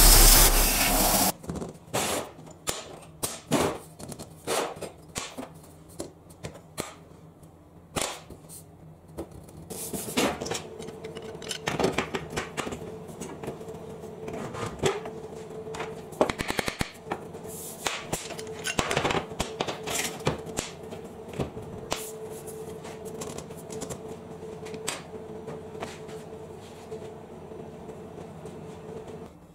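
CNC plasma cutter's arc hissing for about the first second, then it cuts off suddenly. After that, irregular clicks and metallic knocks of F-clamps being set and tightened and steel box section being handled on a steel welding table, with a steady low hum coming in about ten seconds in.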